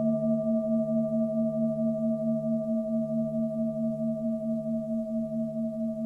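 Tibetan singing bowl ringing on a long sustained tone that wavers in a steady pulse a few times a second, with no new strike.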